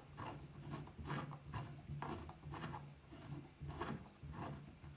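Handwheel and leadscrew of a small aluminium cross-slide milling table being turned by hand, the slide moving with a faint, repeated rubbing scrape in short strokes.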